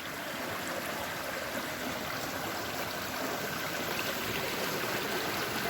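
Mountain river rushing steadily over rocks, a continuous even wash of water that grows slightly louder.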